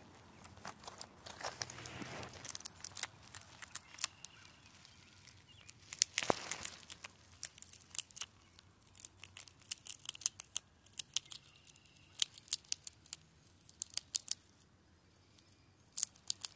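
Eastern chipmunk rummaging in a plastic tray of in-shell peanuts: irregular sharp clicks and crinkles, singly and in quick runs, as the dry shells knock and rustle.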